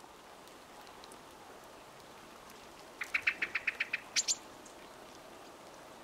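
Middle spotted woodpecker calling: a quick run of about nine short notes over about a second, then two higher, sharper notes.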